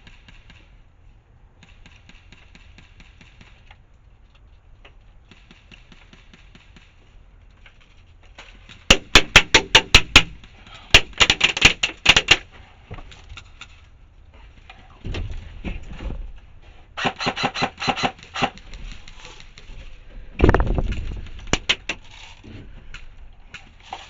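Airsoft electric rifle firing several bursts of rapid shots, the first about nine seconds in, with a couple of duller thumps between the bursts.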